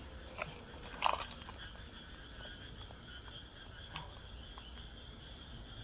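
Faint, steady, high-pitched chirring of night animals, with a few soft crackles, the clearest about a second in.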